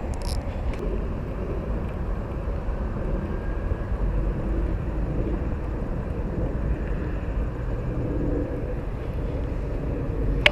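Steady low outdoor rumble with no distinct events, heaviest in the deepest bass.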